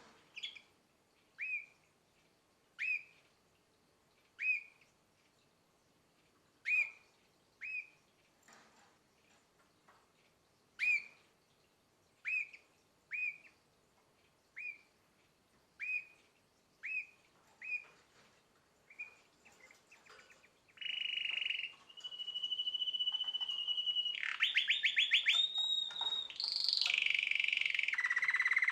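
Domestic canary about nine months old: single short chirps, roughly one a second, for the first twenty seconds. It then breaks into louder continuous song, a held whistled note followed by rapid rolling trills.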